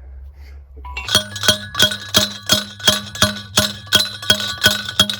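Steel T-post pounder driving a steel fence T-post into the ground in short, quick strokes: a run of ringing metal clanks, about three a second, starting about a second in.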